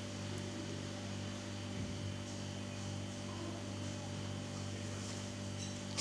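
Steady low electrical hum with faint background hiss.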